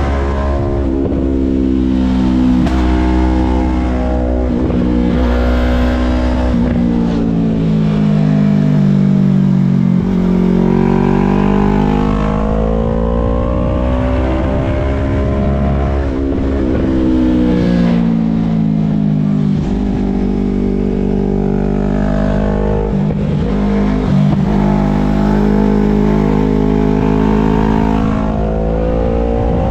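A vehicle engine running under load, its pitch rising and falling repeatedly as it speeds up and eases off, with a few sudden drops in pitch.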